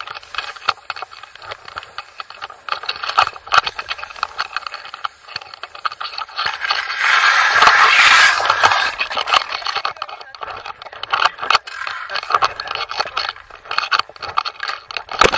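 Skis scraping and chattering over snow, with many clicks and rattles. A louder, longer hiss of sliding on snow comes about seven to nine seconds in, as a skier falls and slides.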